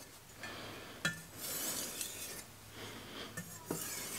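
Shun Premier cleaver's steel edge being stroked across a wet Shapton 4000-grit whetstone with light pressure, a gritty swish on each of several full strokes. This is the final edge refinement on the stone, after the chipped edge has been repaired.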